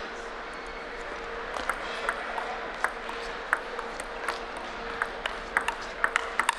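Table tennis rally: the ball clicks sharply off the rackets and the table. It starts with the serve about a second and a half in and quickens toward the end, over a steady hum of a large hall.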